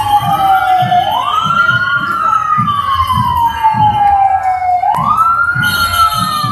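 Police motorcycle siren wailing. Each cycle rises quickly and falls slowly, about twice here, over a steady beat of low thumps.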